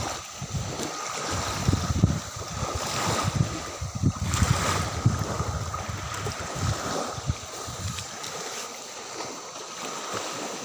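Wind buffeting the microphone in irregular low gusts, strongest for the first eight seconds or so, over a steady hiss of beach wind and surf.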